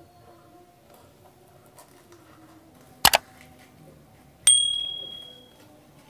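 Subscribe-button sound effect: a sharp double mouse click, then about a second and a half later a bright bell ding that rings out and fades over about a second.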